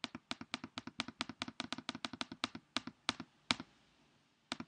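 Computer mouse button clicked rapidly, about twenty sharp clicks in three and a half seconds, slowing slightly toward the end, then one more click near the end. The clicks come from repeatedly clicking an arrow to scroll through the choices.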